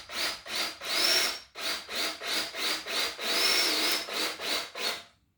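Drill driver run in short trigger pulses, about three a second, each with a brief rising whine, with two longer runs about a second in and past the three-second mark: a 2-inch construction screw being started slowly into the wood. It stops just before the end.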